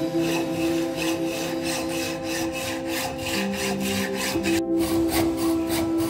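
Hacksaw cutting through a metal bicycle fork steerer tube clamped in a vise, in quick, even back-and-forth strokes. Background music with held tones plays under it.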